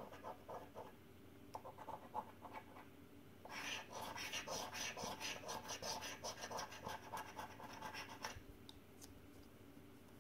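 A coin scratching the silver latex off a paper scratchcard in quick back-and-forth strokes. It starts with a few short bursts of strokes, then a longer, louder run of rapid scraping from about three and a half to eight seconds in, and only a couple of light scrapes after that.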